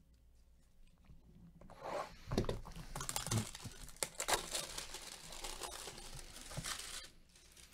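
Plastic shrink wrap being torn and peeled off a sealed box of trading cards, crinkling for about five seconds starting about two seconds in, with a couple of dull knocks near the start.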